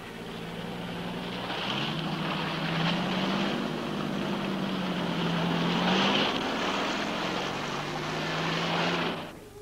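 Lorry engines droning, the pitch slowly rising and falling, over a loud rush of splashing water as the trucks drive through meltwater on the ice. The sound cuts off suddenly near the end.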